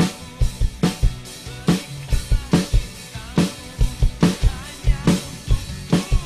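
Acoustic drum kit played in a steady groove: a sharp snare hit a little under once a second, with bass drum thumps between and cymbal wash over the top, along with a drumless backing track of the song.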